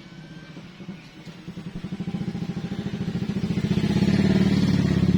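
A motorcycle engine running with an even, fast pulsing beat, growing louder from about a second and a half in and then holding steady.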